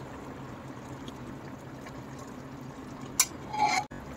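Thick ground masala paste being scraped off a plastic plate with a spoon and sliding into a pressure cooker: soft wet sounds over a faint steady hiss, with a click and a short louder scrape a little after three seconds in.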